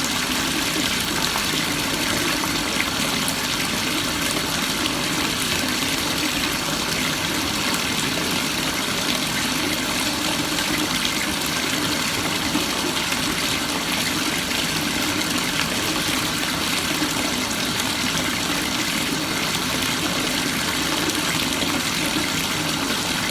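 Bathtub faucet running steadily into a filling tub, a constant rush of water.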